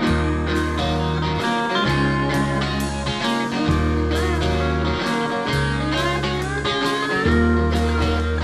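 Small rock band playing an instrumental passage: a lap steel guitar slides up into notes over electric guitar, with an electric bass holding long notes and a drum kit keeping a steady beat.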